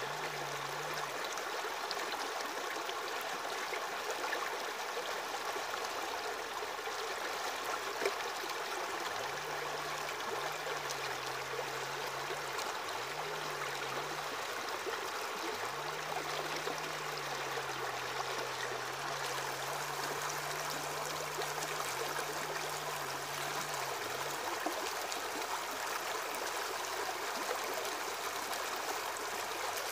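Aquarium water circulating: a steady trickling, splashing rush of filter water stirring the tank's surface, with a low hum that comes and goes.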